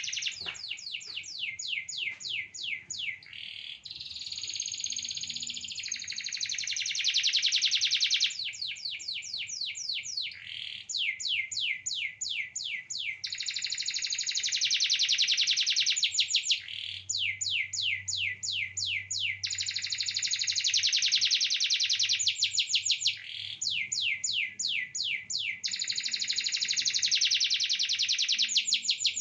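Domestic canary singing continuously: runs of quick, repeated falling notes alternate with long rolling trills that each hold for a few seconds.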